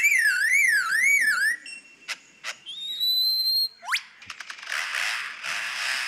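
Recording of a lyrebird mimicking man-made sounds, played through a phone's speaker into a microphone: a car-alarm warble sweeping up and down about twice a second, breaking off about a second and a half in, then sharp clicks, a held whistle, a quick upward sweep and a run of clicks. Near the end comes a harsh rasping buzz, the bird's imitation of a power drill.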